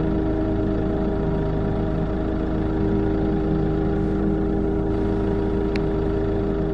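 Camper van's engine idling steadily with a deep, even rumble; one faint click near the end.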